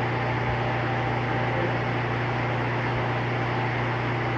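Steady low electrical hum with an even fan-like hiss, unchanging throughout.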